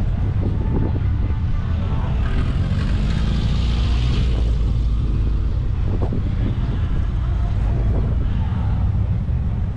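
A car engine running close by with a steady low rumble, and a brief rise in higher-pitched noise a few seconds in; faint voices of a crowd underneath.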